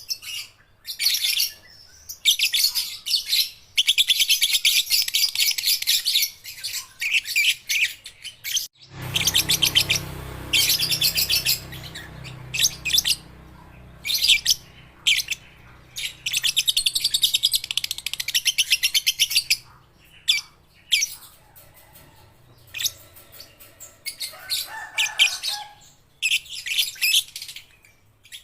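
Young lovebirds chattering in rapid, high-pitched trills, in bursts from under a second to several seconds long, with short gaps between them. A low hum comes in about nine seconds in and fades away over the next ten seconds.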